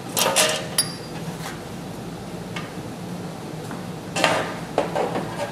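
Metal parts of a fire-truck step being handled on a workbench as its metal kick panel is taken off: short metallic clanks and clinks, a cluster with a brief ring in the first second and another about four seconds in.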